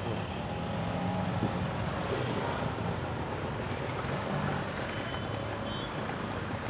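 Steady road traffic: motor vehicles running past, with a low engine hum under the traffic noise.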